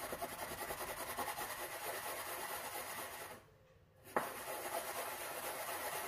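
Stainless steel ring mould twisted back and forth on a floured bamboo cutting board while it shapes a cottage-cheese patty: a steady scraping rub of metal on flour and wood. It stops briefly a little past halfway and starts again with a light click.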